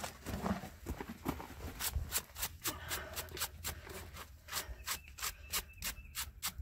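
Rhythmic scraping strokes of a tool worked over a Clydesdale's hoof during a trim, about three strokes a second, starting about two seconds in.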